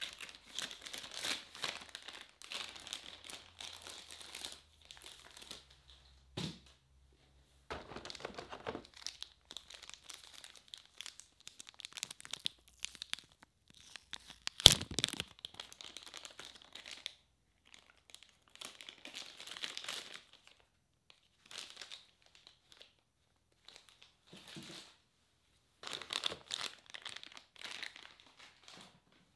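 Plastic packaging crinkling and tearing in irregular bursts with short gaps as it is handled and opened, with one sharp click about halfway through that is the loudest sound.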